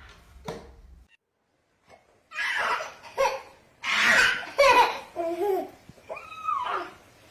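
A baby laughing hard in repeated bursts of belly laughs and high squeals, starting after a short pause about two seconds in.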